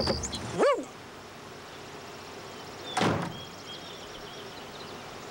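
A short tone that slides up and back down, then about three seconds in a single slam like a car door being shut. Faint bird chirps follow.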